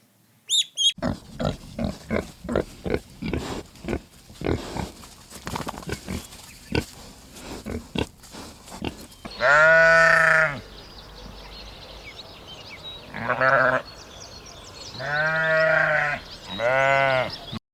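Farm animal sounds: a quick series of short grunts, followed by four drawn-out pitched calls, the first about nine and a half seconds in and the last near the end.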